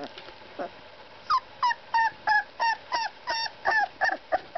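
Four-week-old Boxer puppy whimpering: a short falling cry at the start, then a little over a second in a quick run of about ten short, high squeals, roughly three a second.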